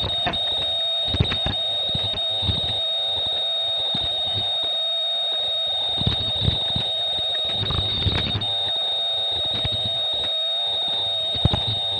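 Face mask making machine running: a steady high-pitched whine with a lower wavering hum, and irregular clicks and knocks from the mechanism.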